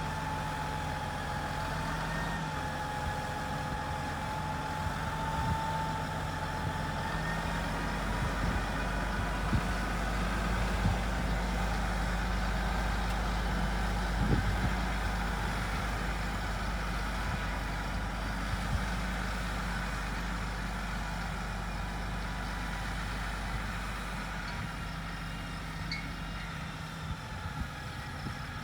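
Engine running steadily at a constant speed, with a thin high whine above it that wavers slightly during the first several seconds.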